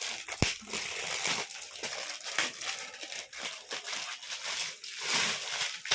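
Gift wrapping and packaging crinkling and tearing as a present is unwrapped by hand, a dense run of crackles with a sharp click about half a second in.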